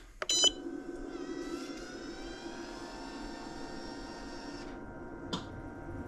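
A short beep from a flow-meter controller as its run button is pressed, then the RV's water pumps start and run with a steady hum and a faint whine that rises slowly in pitch. A single click comes near the end.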